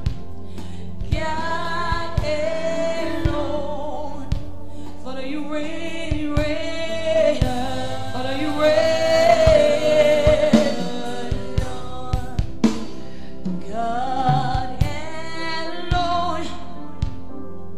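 Live gospel worship music: a woman lead singer holds and bends long sung phrases over backing singers, with drum kit strokes and a steady instrumental bed underneath.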